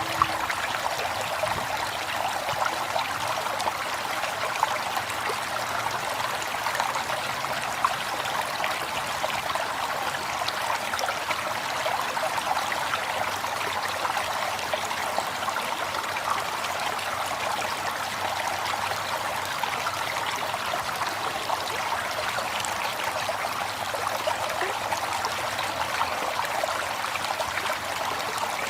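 River water flowing and burbling over stones, a steady rushing with fine splashing texture.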